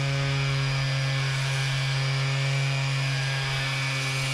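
Makita random orbital sander running steadily with a constant hum, sanding cured epoxy filler on an aluminium rudder bearing housing.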